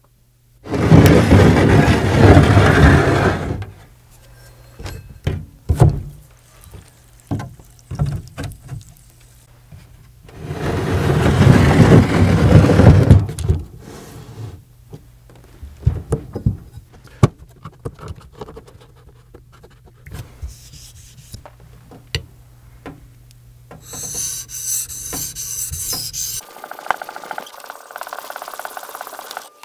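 Two loud rasping rubs, each about three seconds long, then a run of scattered clicks and knocks as a metal clamp fixture and a wooden block are handled on a wooden workbench.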